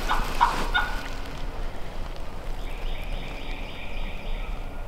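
Wild turkey gobbler gobbling, a rapid rattling run that ends under a second in; a fainter, higher call follows near the end.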